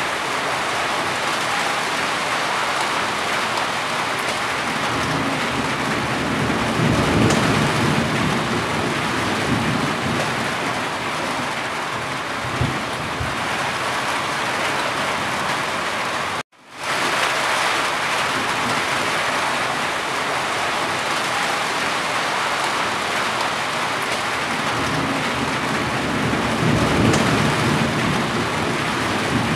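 Steady heavy rain falling on a roof, with water running and dripping off the eaves. Two deeper swells come about a quarter of the way in and near the end, and the sound cuts out for a split second a little past halfway.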